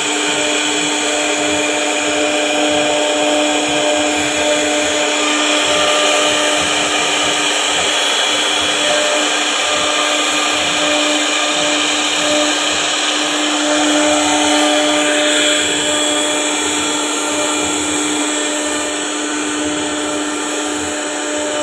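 CNC router spindle running steadily while carving wood: a constant whine over a rough, even cutting noise.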